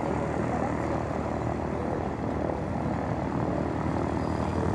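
Airbus A400M's four Europrop TP400-D6 turboprop engines and eight-bladed propellers droning steadily in flight, a low, even hum with no breaks.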